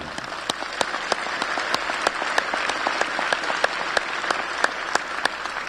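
Audience applauding: many hands clapping together, with some sharper nearby claps standing out, dying down near the end.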